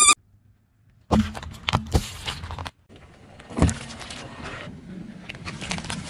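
A car tyre crushing objects on an asphalt road in quick cuts: after about a second of near silence come sharp cracks and crackling, a short break, then more crunching with a loud crack about halfway through.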